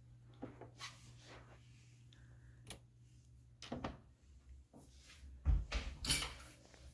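Scattered clicks, rustles and knocks from moving through a closet doorway, with a dull low thump about five and a half seconds in, over a faint steady low hum.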